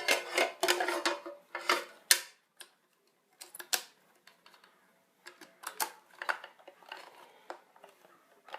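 Irregular clicks, taps and short scrapes of plastic and metal parts being handled as a hard drive is fitted into its external enclosure and pushed onto the SATA connector.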